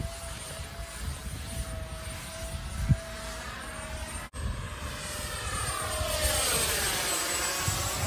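Motor of a radio-controlled jet airplane in flight, with a steady high whine. About four seconds in the sound breaks off, then it comes back and grows louder, its pitch sweeping as the plane passes closer.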